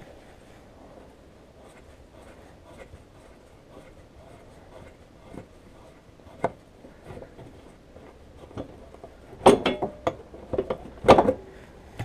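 Tools and parts being handled while an ATV's front bumper is unbolted: faint scraping and small taps, a single sharp click about halfway through, then a cluster of louder knocks and clanks near the end as parts are worked loose.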